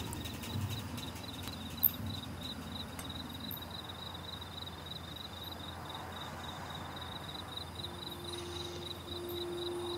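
Crickets chirping in a steady, fast-pulsed high trill, with one light click about two seconds in.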